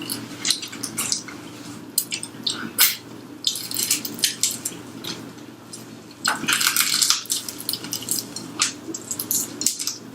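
Close-miked chewing and crunching of over-fried, extra-crunchy french fries: sharp crackling crunches that come thickest in two spells, a few seconds in and again past the middle.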